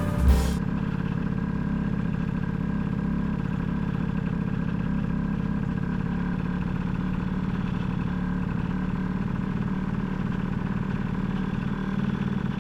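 Small single-cylinder scooter engine idling steadily while its carburettor screw setting is being adjusted. A brief clattering knock comes right at the start.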